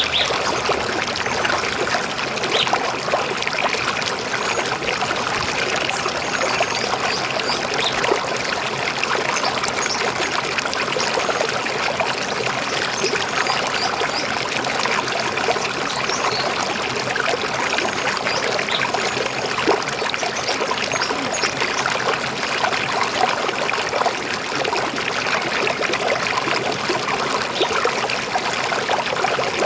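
River water flowing steadily, a continuous gurgling rush with no let-up.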